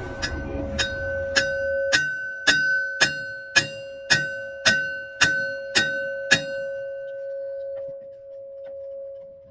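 A steel part being struck repeatedly, about twelve even blows roughly two a second, the metal ringing with a clear sustained tone that carries between blows and dies away over a few seconds after the last one.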